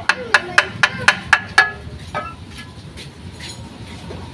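A quick series of sharp metal taps, about four a second, then a few scattered weaker knocks about halfway through, as the clutch-side cover of a Piaggio engine is worked loose.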